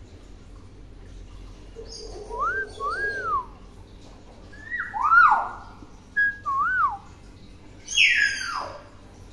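Hill myna whistling: two short rise-and-fall whistles about two and a half seconds in, then a whistle that steps down in pitch, two more arched whistles, and a loud falling call near the end.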